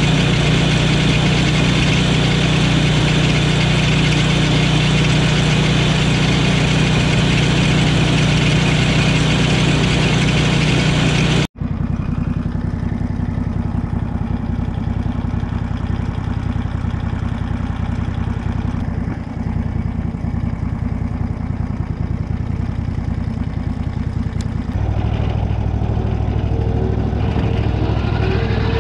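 Lucas Mill swingblade sawmill's petrol engine idling steadily. About a third of the way in it sounds quieter and lower, and a few seconds before the end it grows louder and fuller.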